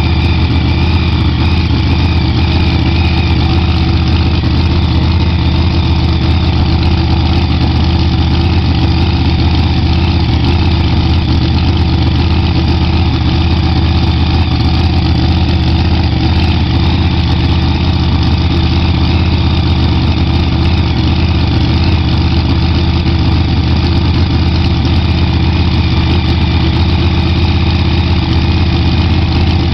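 New Hemi V8 drag-racing engine idling steadily and loudly while being tested.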